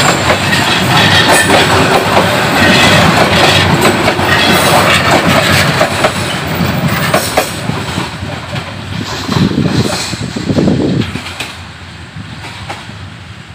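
Bangladesh Railway intercity passenger coaches running past close by at speed, wheels clattering over the rail joints with a steady rushing noise. The sound fades away over the last few seconds as the train goes by.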